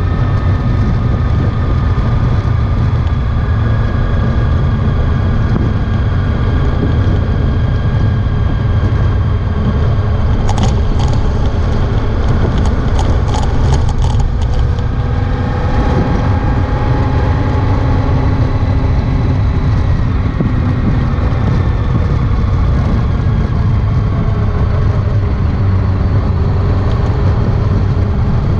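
Honda ST1300 Pan European motorcycle under way: its V4 engine and wind make a steady low rumble, with the engine pitch drifting slowly as the speed changes. A run of sharp clicks lasts a few seconds, starting about ten seconds in.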